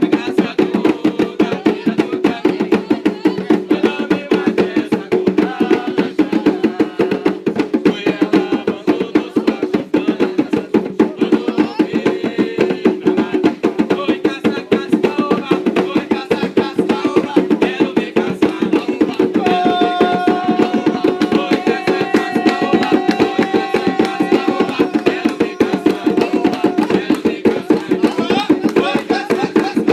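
Hand drums played in a fast, steady rhythm, with voices singing along in a religious chant. Past the middle, a long steady note rises above the drumming for several seconds.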